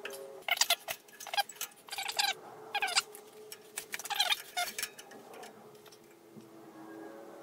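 Light metallic taps and clinks of a steel rule being set down on the bandsaw table and pressed against the metal rip fence rail, in quick clusters through the first few seconds and again about four seconds in, then sparser.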